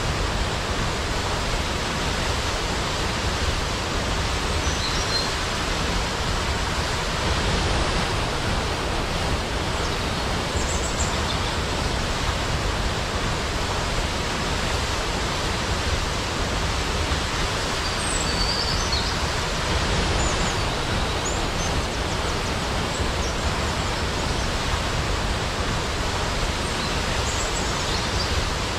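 Steady, loud rush of falling water, the roar of a large waterfall, with a few faint high chirps scattered through it.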